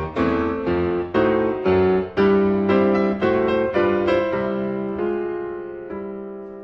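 Background piano music: chords struck at a steady pace that slow down after about four seconds, ending on a held chord that fades away.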